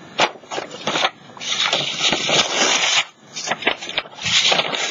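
Sheet-music paper being handled: crackling and rustling with scattered sharp clicks, and a longer run of dense rustle about one and a half to three seconds in, and again near the end.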